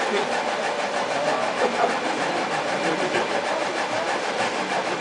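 Laser engraver running as it engraves, its motors driving the laser head: a steady mechanical whirr with a fast, even rhythm.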